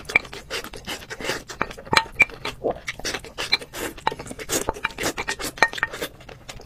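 Close-miked eating: a spoon scraping and clinking against a bowl, with wet, crackly mouth sounds as rice is spooned from the bowl into the mouth.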